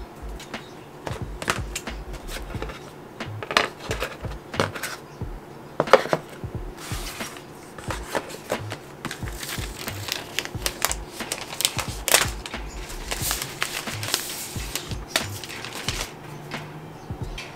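Close handling sounds of an Apple iPad Pro and its cardboard box being unpacked: repeated light taps and clicks of the tablet and box parts, and a longer crinkling rustle of the protective plastic wrap about twelve seconds in, over soft background music.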